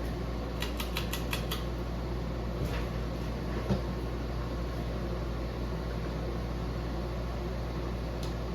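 Encon Crayon ceiling fan running at medium speed with a steady hum. A quick run of about six light ticks comes about a second in.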